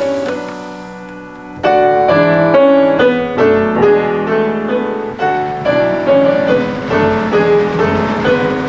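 Piano music: a soft passage, then a sudden louder run of full chords from about a second and a half in.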